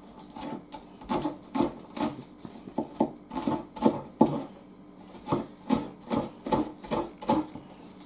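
Chef's knife slicing spring onions on a plastic cutting board: steady strokes about two to three a second, each ending in a tap on the board, with a short pause about halfway through.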